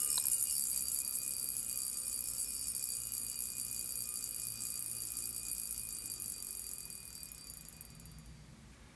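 Mechanical alarm of a Jaeger-LeCoultre Master Compressor Memovox wristwatch going off: the alarm hammer buzzing against the case. It gives a high, metallic buzz that starts suddenly and slowly fades away over about eight seconds.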